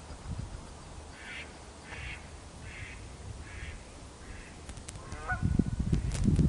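A bird calling five times in an evenly spaced series, about three quarters of a second apart, fading. Near the end a low rumble with a few sharp clicks is louder than the calls.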